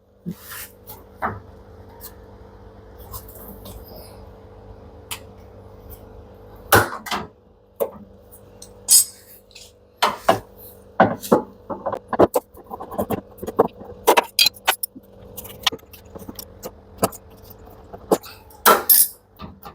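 Irregular clicks, clinks and knocks of hands and tools working on a washing machine's wiring and metal parts during disassembly, over a steady faint hum.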